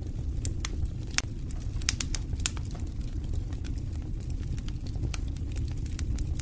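Fire burning in a fireplace: a steady low rumble with frequent irregular sharp crackles and pops, a few louder pops in the first few seconds.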